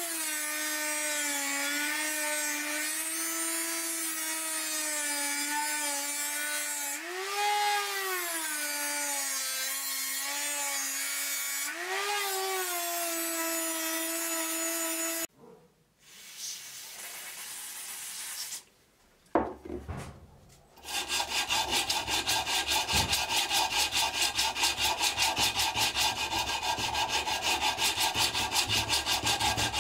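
A small high-speed rotary tool with an abrasive wheel whines steadily as it grinds rust off the steel of a cleaver, its pitch dipping briefly a couple of times as it is pressed into the metal. About halfway through it stops, and after a short pause comes hand sanding: abrasive paper rubbed back and forth over the steel edge in quick, even strokes.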